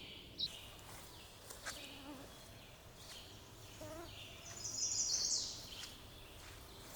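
Faint outdoor ambience with a few scattered bird chirps and, about five seconds in, a short high, fast-pulsed bird trill, the loudest sound here.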